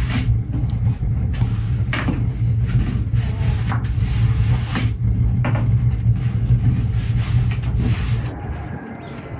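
Long thin wooden rolling pin rolling dough out on a large wooden board: a steady low rumble with scattered knocks of the pin against the board, fading out near the end.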